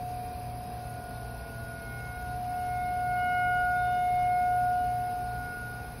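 Outdoor tornado warning siren sounding a steady tone for its monthly test, swelling louder about midway and then fading back down.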